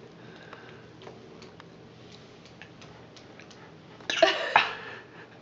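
A baby gagging and coughing in one short, harsh burst about four seconds in, a gag reflex at his first taste of carrots.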